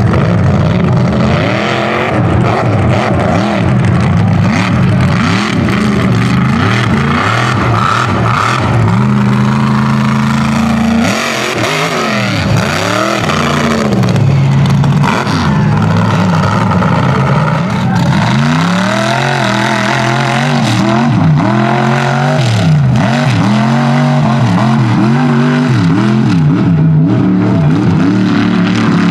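Mega truck engine revving hard, its pitch rising and falling over and over as the truck accelerates and lets off.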